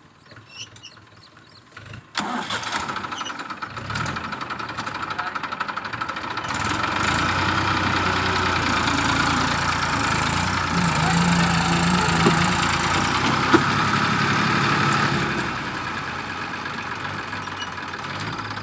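Massey Ferguson 1035 DI tractor's three-cylinder diesel engine starting up suddenly about two seconds in and running, louder from about six seconds on, then dropping back to a lower steady run near the end.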